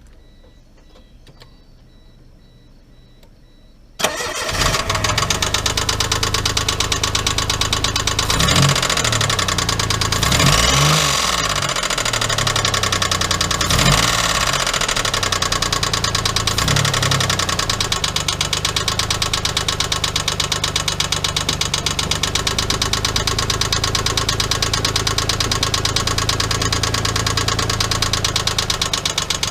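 Geo Metro's 1.0-litre three-cylinder engine starting about four seconds in, then idling with a few short revs and a fast, even knocking; the knock is from a spun rod bearing after the engine ran low on oil.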